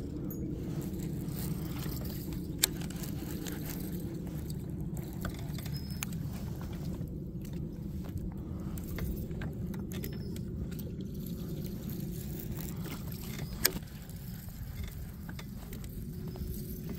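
Boat under way, its outboard motor running steadily with a constant low rumble, broken by two sharp knocks about eleven seconds apart.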